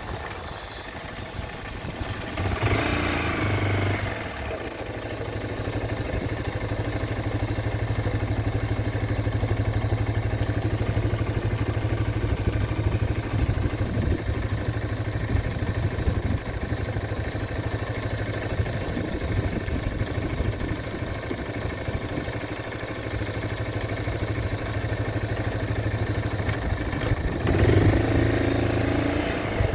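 Yamaha Serow 225's single-cylinder four-stroke engine running steadily, growing louder for a second or so about three seconds in and again near the end.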